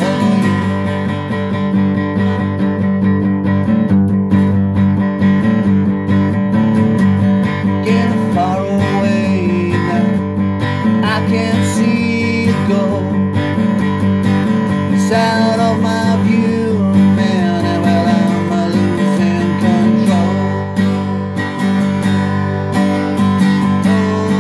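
Acoustic guitar strummed steadily in chords: an instrumental passage of a song, with no voice.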